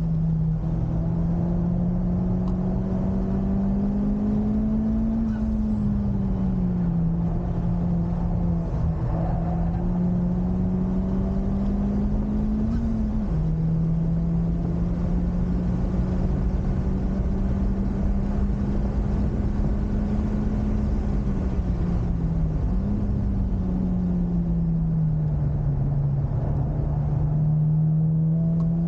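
Honda Civic Type R FK8's turbocharged four-cylinder engine running hard on track, its note slowly rising and falling with speed, with two sudden drops in pitch at gear changes, a little before halfway and about three-quarters through, over a steady rush of road and wind noise.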